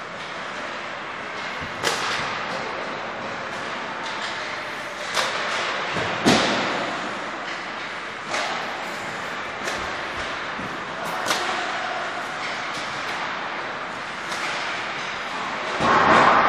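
Ice hockey practice in an indoor rink: pucks cracked by sticks and knocking against the boards, several separate sharp hits a second or two apart, over the steady hiss of skates on the ice, with a louder burst of noise near the end.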